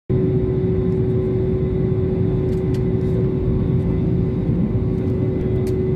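Jet airliner's engines running steadily at taxi power, heard inside the cabin: a constant low rumble with a steady hum.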